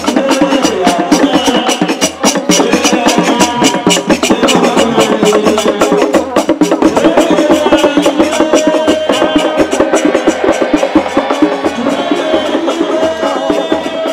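Traditional Igbo percussion music: a quick, steady beat of hand drums and hard wood-block-like clacks, with a low beat about twice a second and a wavering pitched melody line over it.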